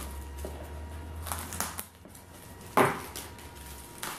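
Scissors snipping the plastic shrink-wrap on a cardboard board-game box, with a few short scrapes of plastic, then one louder clack about three seconds in as the scissors are put down on the table.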